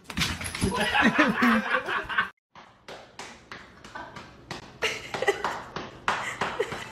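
People laughing in short repeated bursts, broken by a brief gap about two seconds in.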